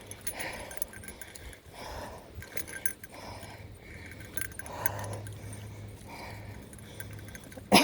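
A bear bell jingling steadily as she walks, under heavy, laboured breaths about one every second or so from climbing a steep hill. Right at the end comes one short, loud sound that falls in pitch.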